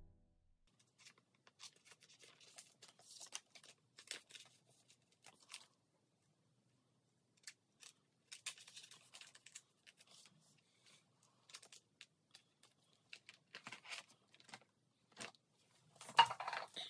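Faint crinkling and rustling of clear plastic binder sleeves as photocards are slid into and out of the pockets, with small clicks and taps in scattered clusters and a louder rustle near the end.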